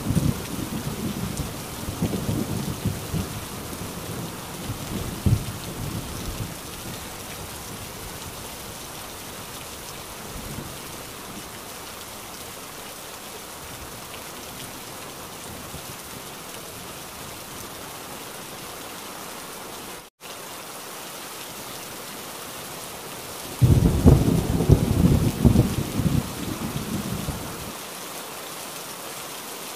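Heavy rain falling steadily, with rolling thunder fading out over the first few seconds. A loud thunderclap breaks in about two-thirds of the way through and rumbles for around four seconds before dying away. The sound drops out for a split second shortly before it.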